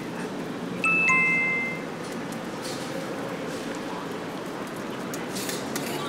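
A two-note chime, a higher note followed at once by a lower one, ringing briefly about a second in, over steady background noise.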